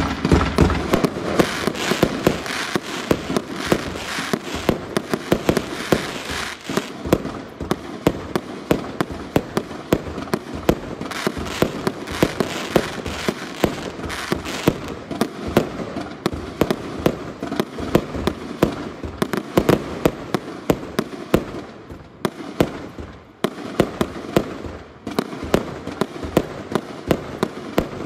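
A DBC0850 Fiesta 0.8-inch 50-shot fireworks cake firing in a rapid run of sharp reports, about two or three a second, with a steady noisy fizz between them. The firing thins out briefly about three quarters of the way through, then picks up again.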